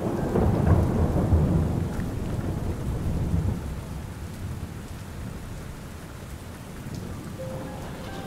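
Rain ambience with a low rolling rumble of thunder over the first few seconds. The rumble fades away, leaving steady rain.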